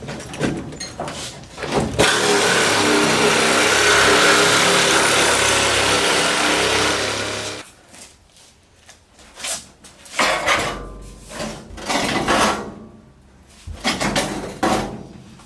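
A power tool cuts through the sheet metal of a pickup truck box, running steadily for about five seconds, then stops. Several short separate bursts and knocks follow as the cut is worked.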